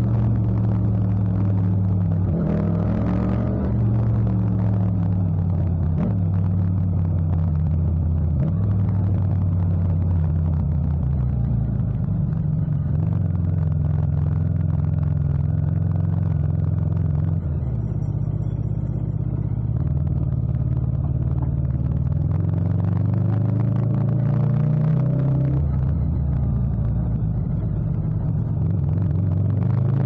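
Yamaha MT-07's 689 cc parallel-twin engine running under way, its note rising and dropping in steps several times through the ride.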